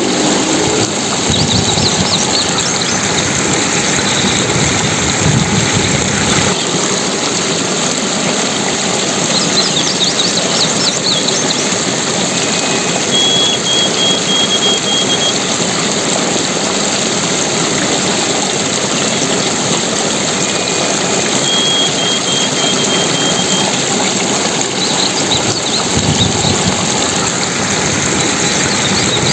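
Steady rushing water, with a few faint high chirps now and then.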